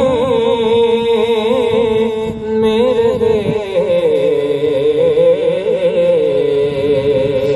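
A male voice singing an Urdu naat (devotional poem in praise of the Prophet), drawing out long, wavering notes.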